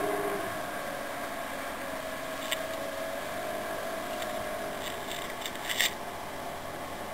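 Motorboat engine running steadily under way, over the rush of water along the hull. A sharp click about two and a half seconds in and a short cluster of clicks near the end.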